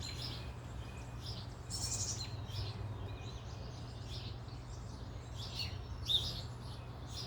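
Small birds chirping: short high calls scattered through, a few at a time, over a low steady hum.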